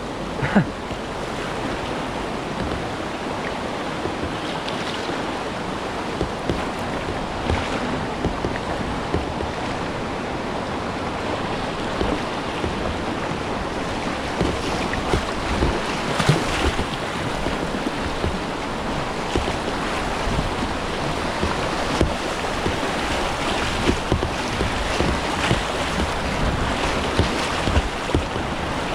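Rushing whitewater on a river, heard from a kayak: a steady rush of water with occasional sharper splashes.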